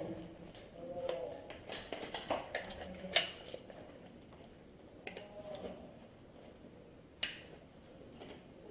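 Scattered sharp clicks and snaps, the loudest about three seconds in and another just past seven seconds, over a faint background.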